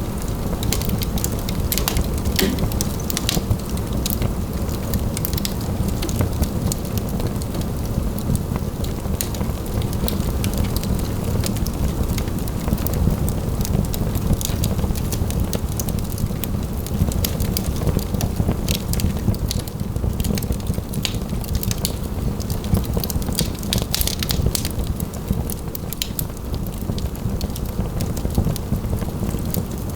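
Wood fire in a fireplace crackling, with frequent sharp, irregular pops and snaps over a steady low rumble.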